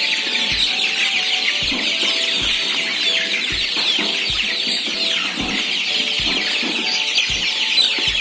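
A large flock of young kampung super chicks peeping nonstop as they crowd the feeders, many short falling chirps overlapping into one shrill chatter. Under it runs background music with a steady low thump a little more than once a second.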